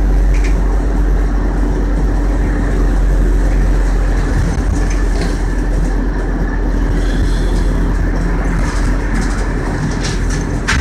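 Inside a 2002 Orion VII 40-foot CNG transit bus under way: the steady low drone of its natural-gas engine blends with road noise, with a few clicks and rattles near the end.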